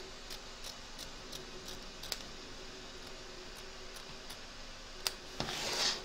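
Small scissors snipping through cotton appliqué fabric close to the stitching, a run of light snips about three a second, then a few scattered snips. Near the end comes a louder rustle as the fabric is handled.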